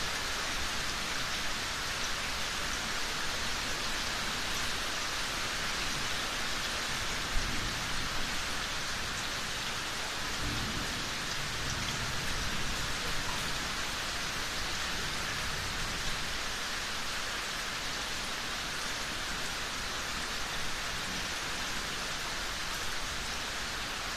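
Steady rain, with a brief low rumble of distant thunder about ten seconds in.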